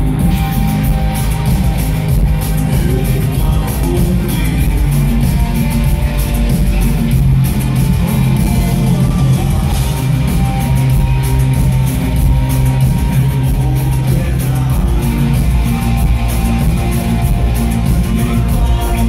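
Rock band playing live in a large hall: loud amplified rock music with a heavy bass end, guitars and a lead vocal.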